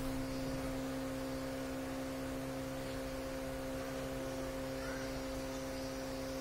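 Steady electrical hum: a low, unwavering tone with a second tone an octave above it, over faint room noise.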